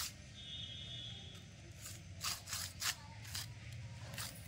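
A rhesus macaque scraping and rubbing a small bundle of dry grass stems on a concrete floor: a few short, dry scratching strokes, most of them in the second half.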